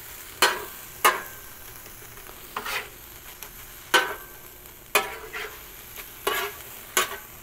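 Steel spatula scraping and clacking on a Blackstone flat-top griddle, about nine irregular strokes, while spiced chicken fries with a steady sizzle.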